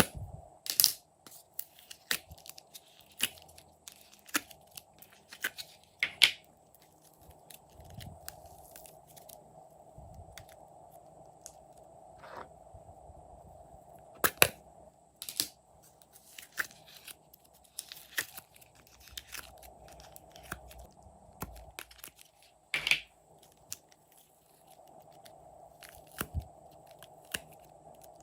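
Glossy slime being squeezed, stretched and pressed by hand, making irregular sticky clicks and pops, with a few louder pops.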